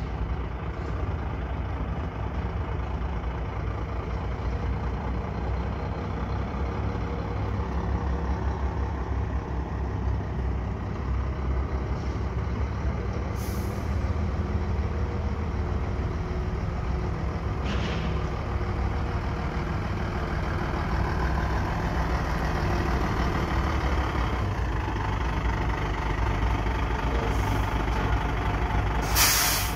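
Scania truck's diesel engine running as the truck moves slowly up, a little louder in the second half. Three short hisses of released air from its air brakes, the loudest near the end.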